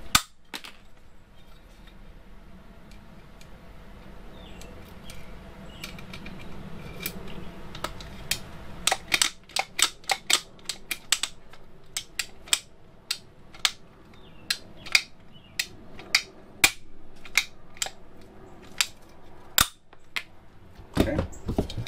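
Hand pop-rivet gun being squeezed to set rivets through an aluminium angle bracket: a run of sharp metallic clicks and snaps, sparse at first and then one or two a second from about eight seconds in.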